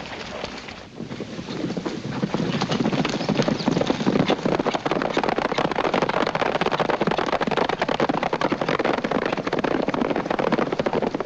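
Hoofbeats of several horses galloping on dry dirt, a dense clatter that builds up about two seconds in and then runs on steadily.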